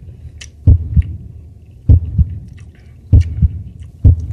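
Heartbeat sound effect: a slow, low double thump (lub-dub) repeating about every 1.2 seconds, four beats in all, with faint clicks between them.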